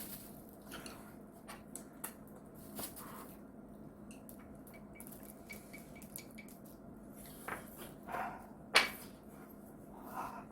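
Quiet handling and eating sounds: scattered light clicks and taps of food and utensils, with one sharper click near the end.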